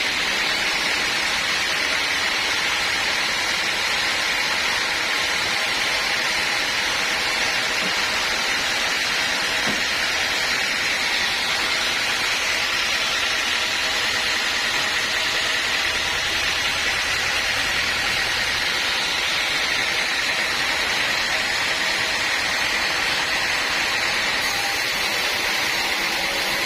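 Sawmill machinery running: a steady, even noise with no breaks or strokes.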